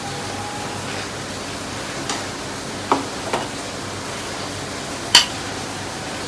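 Metal spoon scooping thick spinach curry, with a few sharp clinks against the pan and bowl, the loudest about five seconds in, over a steady hiss.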